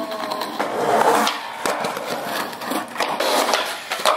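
Skateboard wheels rolling on concrete, a steady rumbling hiss with a few sharp clicks.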